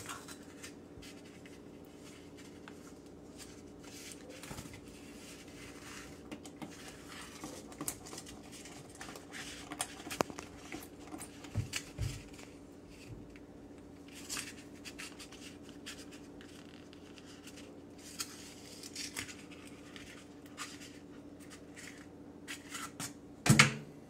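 Faint scratching and scraping of fingers working a bird free of a black plastic glue trap, over a low steady hum. A couple of soft knocks come about halfway, and a brief louder sound comes near the end.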